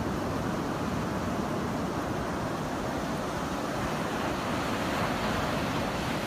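Sea surf washing up on a sandy beach: a steady rush of small breaking waves.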